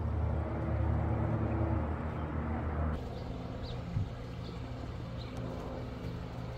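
A steady low machine hum with several pitches, which drops and changes abruptly about three seconds in. Faint short high chirps and a soft thump follow.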